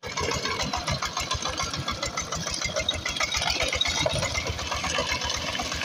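Diesel engine of a power tiller running steadily, with a fast, even knocking beat.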